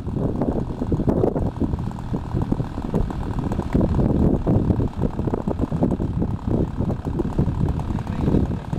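Magnum XLS-61A two-stroke glow engine on a model airplane running steadily with its propeller spinning, mixed with wind buffeting on the microphone.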